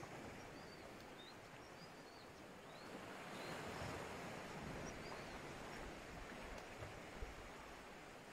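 Faint surf washing against a boulder shore, swelling about three seconds in, with a small bird's short high chirps through the first half and a single faint tap about seven seconds in.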